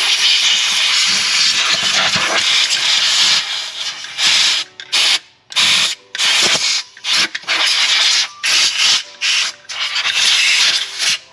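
Long-reach compressed-air gun hissing into the lifter valley of a GM 3800 V6: a steady blast for about four seconds, then a string of short bursts as the trigger is pulsed.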